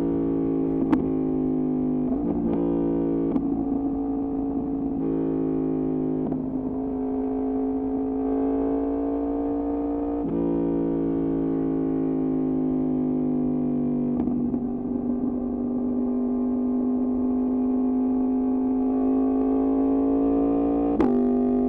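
Yamaha MT-10's crossplane inline-four running through an Austin Racing exhaust at fairly steady revs, its note drifting gently up and down. The note breaks and shifts abruptly a handful of times as the throttle or gear changes.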